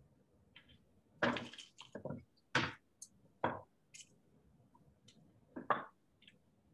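Ingredients and utensils being handled while cooking: about seven short, squishy rustles and light knocks, the longest about a second in.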